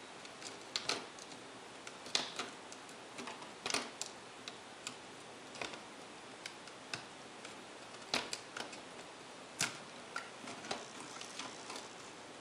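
Irregular clicks and taps of hands and a plastic pry tool working on a netbook's bare motherboard and plastic chassis, loosening parts so the board can be lifted out. The sharpest clicks come about two, four, eight and nine and a half seconds in.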